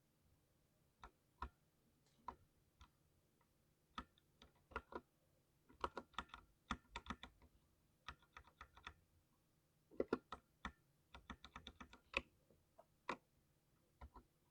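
Mechanical keyboard being typed on, with thocky keystrokes in irregular runs: a few scattered presses at first, then quicker flurries of typing.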